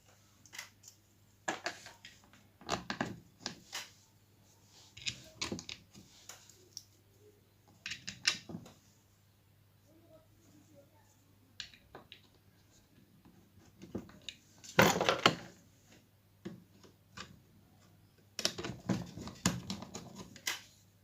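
Scattered clicks and short scraping bursts as screws are fitted and tightened into the housing of an LMT horn driver unit. The loudest burst comes about 15 seconds in.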